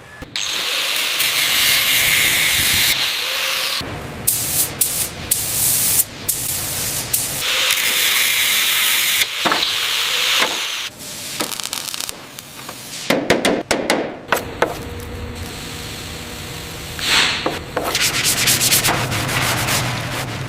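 Abrasive rubbing and sanding noise on a hard surface, in a string of stretches that cut in and out abruptly, with a few short knocks between them.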